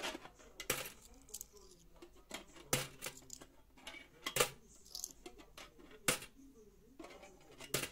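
Turkish lira coins dropped one by one through the slot of a tin money box, each landing with a metallic clink. There are about five clinks, one every second and a half or so.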